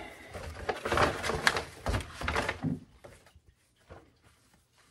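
Paper shopping bag rustling and crinkling as a shirt is pulled out of it, loudest in the first two or three seconds, then only faint handling sounds.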